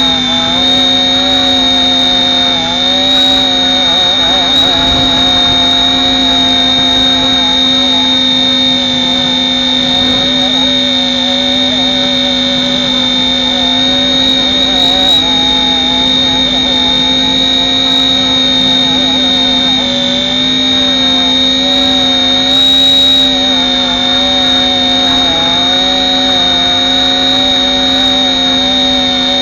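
Radio-controlled helicopter in flight, heard from the camera mounted on its front: a loud, steady motor whine and rotor hum, with the middle tones wavering slightly as the copter works against wind gusts.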